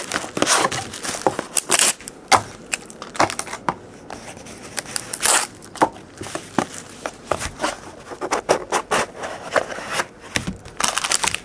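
Plastic wrapping on a trading-card box being cut with a blade and pulled off: crinkling plastic with many irregular sharp crackles, scrapes and tears.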